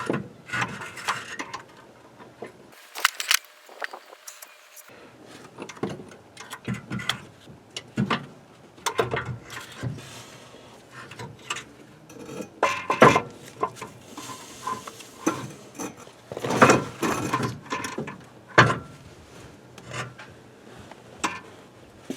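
Irregular metallic knocks, clanks and scrapes as the 2013 Ford Flex's power transfer unit is pried and worked free past a bent bracket, with louder bursts of clanking about 13 and 17 seconds in.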